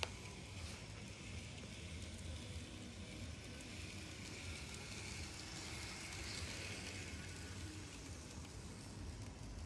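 N-scale model train running on track: the Kato Pocket Line steam locomotive's tiny motor and wheels give a faint, steady whir with a light hiss. A single sharp click comes right at the start.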